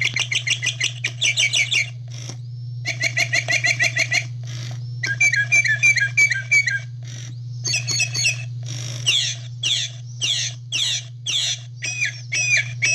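Gemmy Singing Mockingbird toy playing northern mockingbird song in its chirping mode. The song comes as runs of quick repeated chirps, each run a different phrase, some of them falling sweeps, over a steady low hum.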